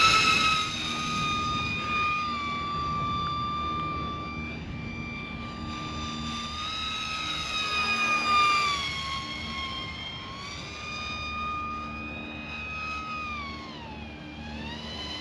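Micro Drag Queen sub-250 g RC plane's battery-powered electric motor and propeller whining in flight. The pitch sweeps up sharply at the start, holds fairly level with small dips, then sags near the end. It is loudest at the start and again about eight seconds in, on close low passes.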